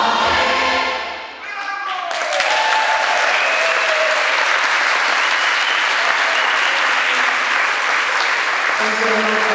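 A large mixed choir ends on a held final chord that dies away about a second and a half in. About two seconds in, loud applause breaks out, with cheering voices over it.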